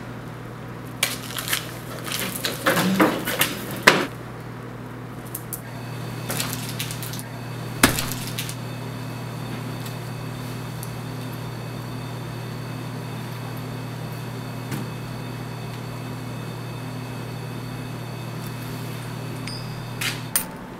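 Hands knocking and tapping on a tabletop: a cluster of sharp taps in the first few seconds, one loud knock about eight seconds in, and a few more taps near the end, over a steady low hum.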